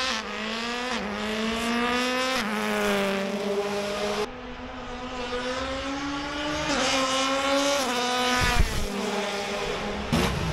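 Race car engine running at high revs and accelerating hard through the gears. The pitch climbs, then drops back at each upshift, several times over.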